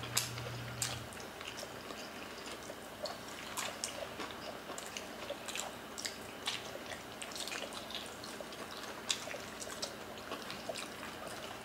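Close-up wet chewing and mouth clicks of people eating oxtail kare-kare and rice by hand, with irregular sticky ticks of fingers working the sauce-soaked food.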